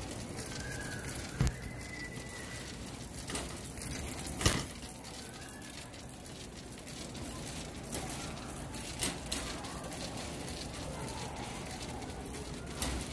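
Steady background din of a big-box store, broken by a few sharp knocks and rattles from a metal shopping cart being pushed, the loudest about four and a half seconds in.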